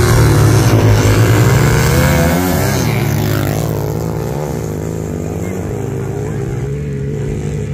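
Two motorcycles revving hard and accelerating away from a standing start, the engine pitch rising and dropping through the gears. Loudest at first, they fade steadily from about two seconds in as they pull away.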